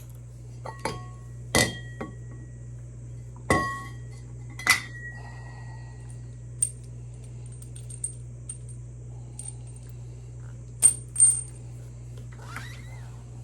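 Small metal parts or tools clinking and being set down on a hard surface: a series of sharp, ringing metallic clinks, the loudest in the first five seconds and a quick pair a little after the middle, over a steady low hum.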